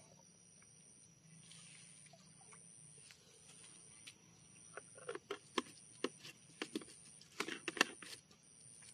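Faint clicks and knocks of plastic bottles and caps being handled, coming thick and fast in the second half, over a faint high-pitched pulsing tone.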